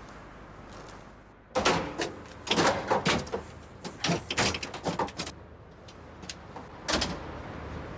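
A phone-box door being pushed open and handled: a run of sharp knocks, clatters and rattles lasting about four seconds, then one more knock near the end.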